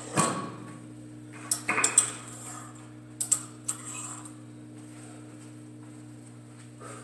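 Metal clanking of a loaded barbell's plates and collars being handled on the bar ends. One loud ringing clank just after the start, then clusters of sharper clanks about a second and a half in and again about three seconds in.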